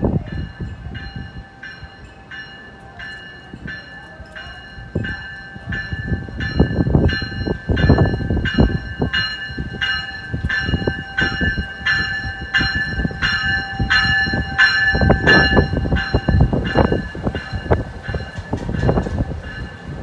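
NJ Transit cab car's warning bell ringing steadily, about two strokes a second, as the train pulls into the station, growing louder as it approaches and dying away near the end. Under it the low rumble of the arriving train rises and falls.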